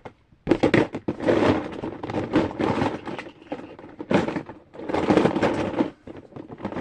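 Small plastic fidget toys clattering and knocking together as hands rummage through a drawer of them, a dense run of clicks in several clusters starting about half a second in.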